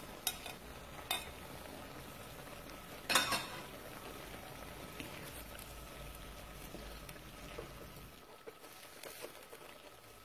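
Diced zucchini and swordfish sizzling in a frying pan as they are stirred with a wooden spatula. A few sharp knocks of a utensil against the bowl and pan come in the first few seconds, the loudest about three seconds in.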